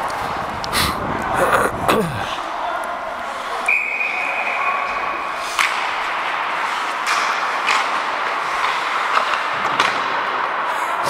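Ice hockey rink during play: scattered sharp clacks and knocks of sticks, puck and boards, over arena noise and distant voices. A steady high tone sounds for about two seconds a little before the middle.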